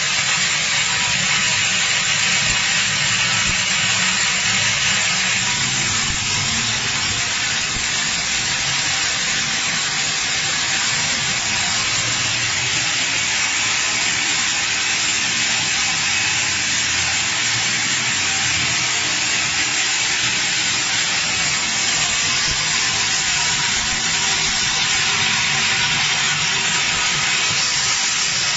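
A Wesort 6SXZ-68 grain colour sorter running with a steady hiss, as sorted seeds stream through a cloth chute into a plastic bucket.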